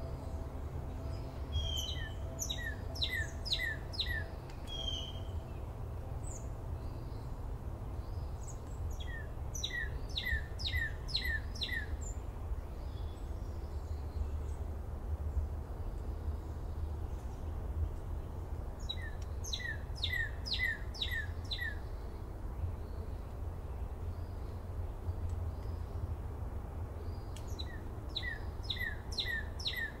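A songbird singing a short phrase of five or six quick down-slurred notes, repeated about four times at intervals of roughly nine seconds, over a steady low background rumble.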